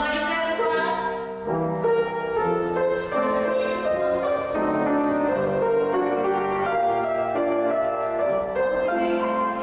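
Piano accompaniment for a dance class playing a lively tune of chords and melody.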